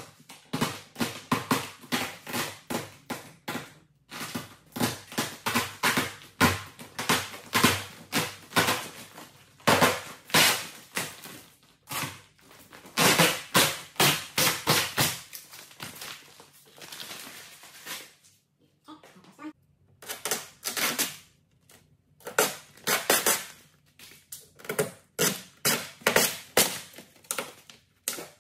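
Xpel Tracwrap temporary protective film being peeled off car paint: the adhesive tape crackles and the plastic film crinkles in long runs of rapid, sharp clicks, broken by a few brief pauses.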